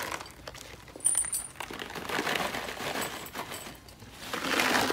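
Dry cat kibble rattling into a ceramic food bowl, with a sharp clink about a second in and further rattling bursts toward the middle and near the end.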